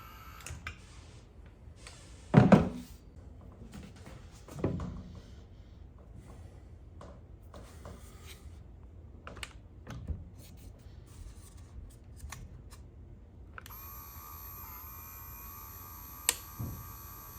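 Knocks and clicks of a caulking gun being handled, with one loud thunk early on. About two-thirds of the way through, the gun's small battery-powered electric motor and gearbox start and run with a steady whine.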